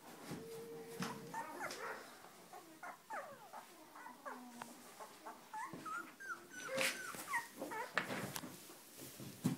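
A litter of very young Weimaraner puppies squeaking and whimpering: many short, high calls that slide up and down, overlapping one another.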